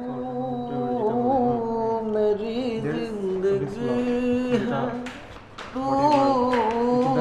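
A song: a singing voice holding long, wavering notes over light accompaniment, with soft percussive taps in the second half.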